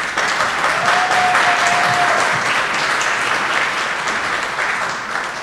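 Audience applauding: a dense patter of many hands clapping, easing off slightly toward the end.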